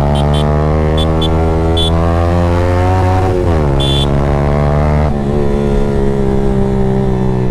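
Yamaha 155 cc single-cylinder motorcycle engine running steadily at riding speed through an aftermarket Akrapovic exhaust. Its pitch dips a little past halfway, then holds steady again. A few short high chirps sound in the first half.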